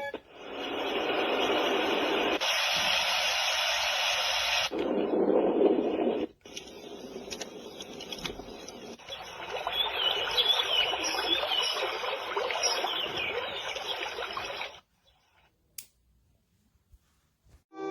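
Portable baby white noise machine playing its built-in sounds one after another: a steady hiss that changes character every few seconds, from a bright, higher hiss to a deeper rush and back, the last with faint chirps in it. It cuts off suddenly near the end.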